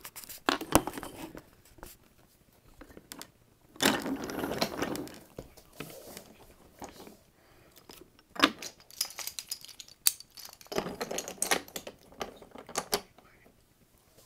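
Wooden toy trains and freight cars handled and pushed along wooden track, making irregular clicks, clacks and short rattles with quiet gaps between them.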